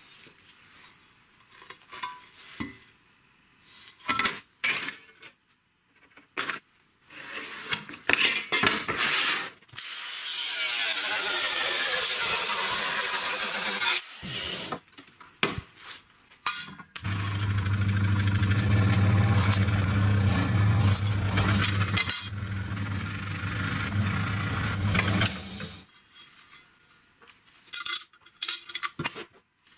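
A power tool runs in two long spells, the first about four seconds, the second about eight seconds with a strong low hum. Knocks and clatter of sheet metal and tools being handled come before, between and after.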